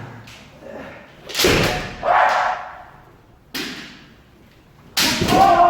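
Kendo strikes: four sharp cracks and thuds of bamboo shinai hitting armour and feet stamping on the dojo floor. The last strike, near the end, comes with a long kiai shout whose pitch slowly falls.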